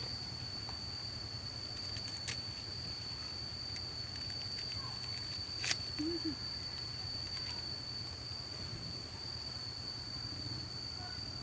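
Outdoor ambience: a steady, high-pitched insect drone holds one pitch over a low hum, with a single sharp click a little past the middle.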